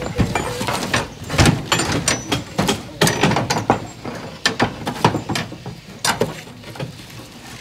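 Steel reinforcing bars clinking and scraping against each other in irregular sharp knocks as the rebar mesh of a concrete deck is levered up and propped on spacers. The knocks thin out toward the end.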